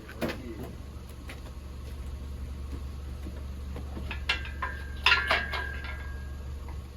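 Scattered metal clanks and clinks of parts or tools, with a louder cluster about four to six seconds in where one strike leaves a short metallic ring, over a steady low hum.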